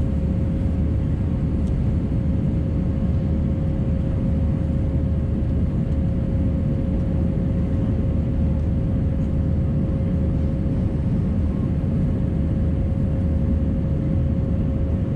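Airbus A319 passenger cabin noise in flight: a steady low rumble of the jet engines and airflow, with a constant mid-pitched hum running through it.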